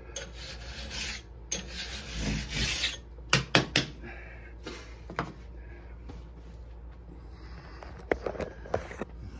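A flat file in a bar-dressing jig rasps along the steel rails of a chainsaw bar in two long strokes. This is the bar being dressed level. A quick run of sharp taps follows as the tool is tapped out, and near the end a few knocks as the plastic jig is set down on the wooden bench.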